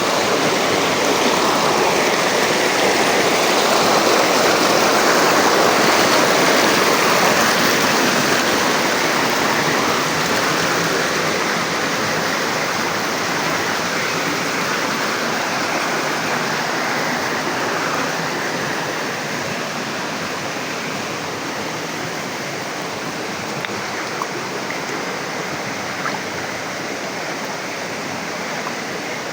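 Flowing water rushing steadily, like a stream or small river, slightly louder at first and easing a little over time, with a couple of faint clicks near the end.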